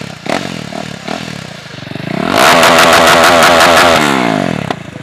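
KTM Duke single-cylinder engine running with its exhaust silencer removed, being revved: a lower, uneven stretch, then a sharp rise about two seconds in, held high for about a second and a half before it drops back. A sharp pop comes as the revs fall near the end.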